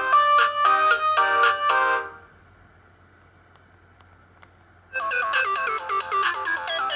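Sony Ericsson W810i mobile phone's loudspeaker playing synthesised ringtone melodies. One tune stops about two seconds in, a few faint clicks follow in a quiet gap, and a different ringtone starts about five seconds in.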